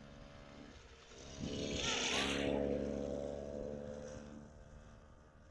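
A motor vehicle's engine passing by, growing louder for a couple of seconds and then fading away.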